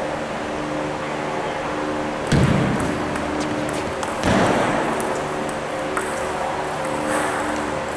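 Table tennis rally: the ball clicking off the bats and the table, with two heavier thuds about two and four seconds in.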